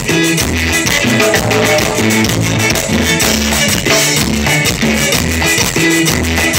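Instrumental dance music with no singing: plucked strings over a bass line and drums keeping a steady beat.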